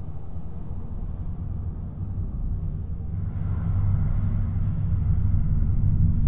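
Electronic glitch/techno track: a dense, low rumbling drone with a noisy texture that slowly grows louder, with a hiss-like layer coming in about halfway through.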